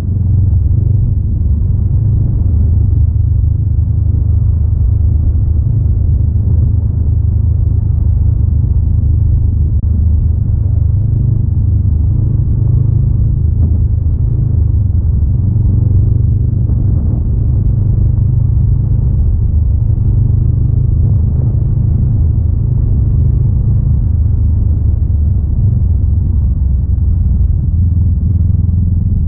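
Honda Rebel 500's parallel-twin engine running at a steady cruise on a dirt road. The sound is a deep, steady drone with no sharp revs.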